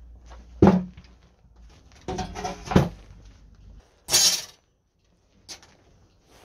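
Metal sheet and tools handled on a workbench: a sharp knock, then a metallic clatter with a brief ringing, then a short scrape as a metal ruler is laid on the sheet.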